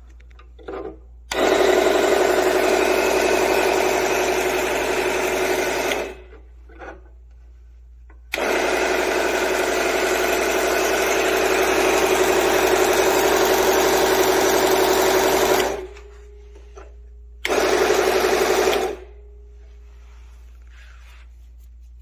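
Mini benchtop table saw with side belt sander, its motor spinning the blade and sanding belt with no load: a steady hum-whine. It is switched on and off three times, in runs of about five, seven and one and a half seconds, each starting and stopping abruptly.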